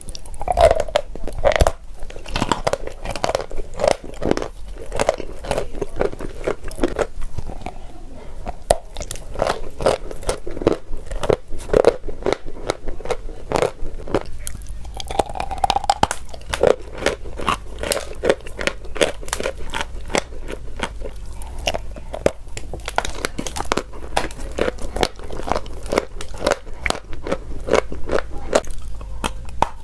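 Sweet chalk being bitten and chewed close to the microphone: a dense, continuous run of dry crunches and snaps, several a second.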